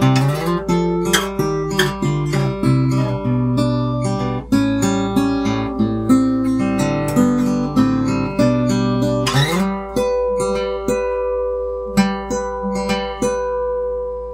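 X-braced acoustic flat-top guitar with a solid spruce top being played: picked notes over a moving bass line, then a strummed chord about nine seconds in that is left ringing, with a few notes picked over it as it fades.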